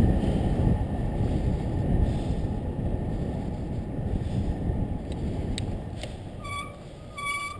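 Wind buffeting the microphone of a moving bicycle, easing off as the bike slows. Near the end a high-pitched squeal comes in short repeated pulses.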